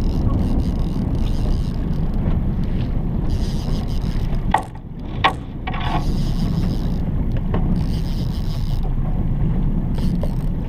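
Small boat's outboard motor running steadily at trolling speed, with wind on the microphone and an on-and-off high hiss. About halfway through, the rumble dips briefly and there are two sharp clicks.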